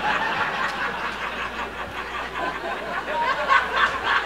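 Stand-up comedy audience laughing at a joke, many voices overlapping in a sustained crowd laugh.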